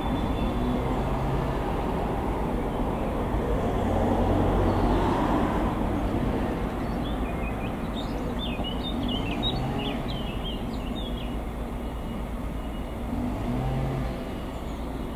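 Diesel locomotive of the DB V90 (class 290) type running with its freight train, giving a steady low rumble that swells about four to five seconds in. A bird chirps repeatedly in the middle.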